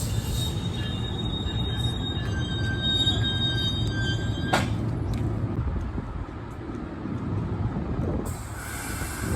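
Freight train cars rolling past with a steady low rumble, the wheels squealing thinly and high-pitched for the first few seconds. A single sharp knock comes about halfway through, and a fainter squeal returns near the end.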